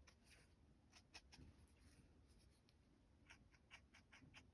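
Faint, quick scratchy strokes on rough cotton rag paper from colouring in, about five a second, pausing for a couple of seconds in the middle before starting again.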